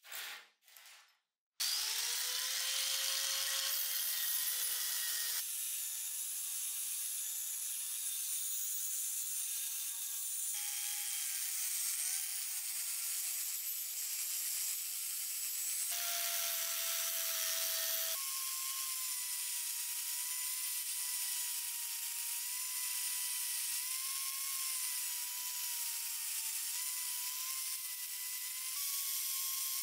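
Small power sander with a sanding disc grinding the metal body of a pneumatic nailer: a steady rasping with a motor whine that spins up about two seconds in and wavers in pitch as the disc is pressed on. A few short knocks come just before it starts, and the whine jumps in pitch several times.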